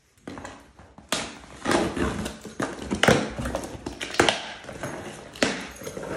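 Cardboard box torn open by hand: the taped top ripped apart and the flaps pulled open, a run of sharp rips and knocks with cardboard rustling between them.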